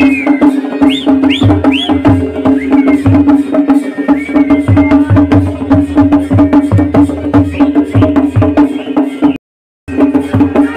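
Traditional Kumaoni wedding band music for a Chholiya dance: rapid dhol-damau drumming over a steady held drone, with three short high rising notes about a second in. The sound cuts out for a moment near the end.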